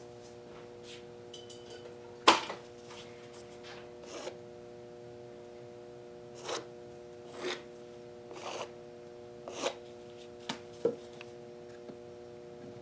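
Scattered light taps, knocks and rubs of painting materials being handled, one sharper knock about two seconds in, over a steady electrical hum.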